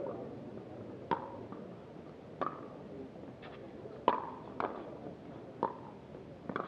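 A pickleball rally: paddles hitting the hard plastic ball, a string of sharp pops with a brief ring, spaced roughly a second apart and sometimes closer.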